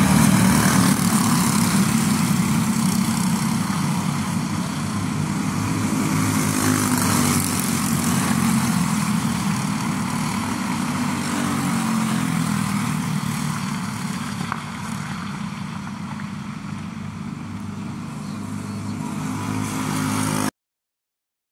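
Small racing go-kart engines buzzing as a pack of karts passes at speed, loudest at the start and fading away. A single kart's engine then grows louder as it approaches near the end, and the sound cuts off abruptly.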